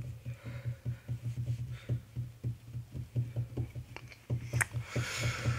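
Handling noise from a phone held close to the face: a low, unevenly pulsing hum with many soft, irregular taps and clicks, and a brief rustle near the end.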